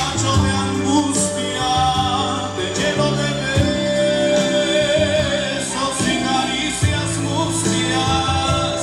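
Live romantic ballad: a male singer's voice holding long notes over Yamaha Motif XF keyboard and cajón accompaniment.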